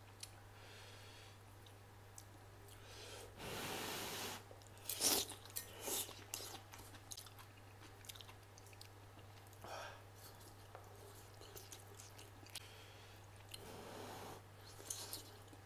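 A man eating noodles from a hot pot: a slurp about a second long a few seconds in, then chewing with wet mouth clicks and smacks, over a faint steady low hum.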